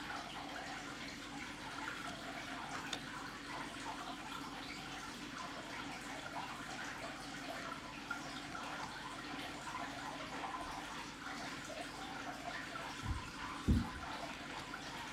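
Steady hiss-like background noise with faint scattered rustle, and two soft low thumps under a second apart near the end.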